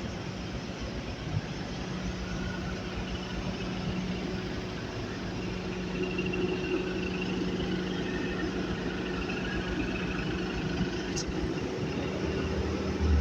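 Skid steer loader's engine running steadily, with a brief click about eleven seconds in.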